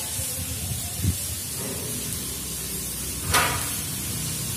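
Plastic basket wire being handled during weaving, over a steady background hiss and low hum. There is a soft knock about a second in and a brief sharp rustle about three seconds in.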